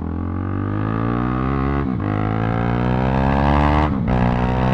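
KTM RC390's single-cylinder engine pulling up through the gears: the revs climb, drop briefly at a gear change about two seconds in and again near four seconds, then climb and hold.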